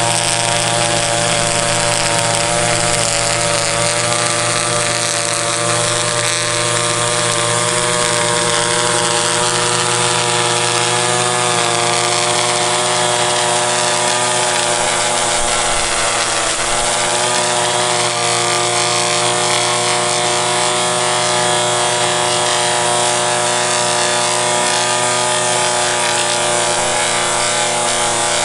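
Gasoline string trimmer running steadily at high throttle, its spinning line edging grass along a concrete sidewalk.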